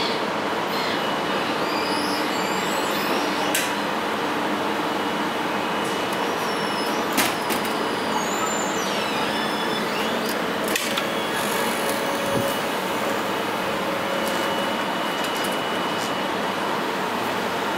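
Steady rushing hum of a railway station platform beside standing passenger trains, with a few sharp clicks and faint high squeaks over it.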